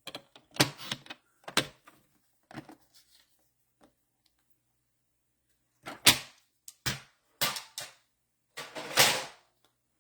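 Paper trimmer cutting a strip of cardstock to length: a series of sharp clicks and snaps, with a short scraping stroke of the blade near the end.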